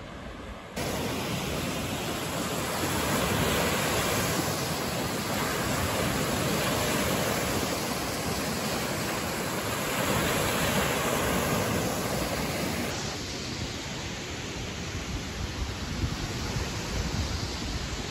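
Small Lake Michigan waves breaking and washing up onto a sandy beach: a steady rush of surf that swells twice. About thirteen seconds in it drops to a quieter, more uneven rush.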